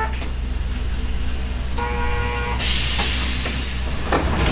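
Hankai Tramway Mo161-class tram running, the steady low rumble of its nose-suspended (tsurikake) drive traction motors underneath. About two seconds in a short steady tone sounds, followed by a burst of hissing, and near the end the wheels click over rail joints.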